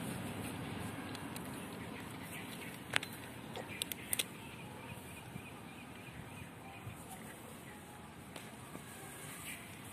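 Quiet outdoor background with a steady low hiss, broken by a few sharp clicks about three and four seconds in.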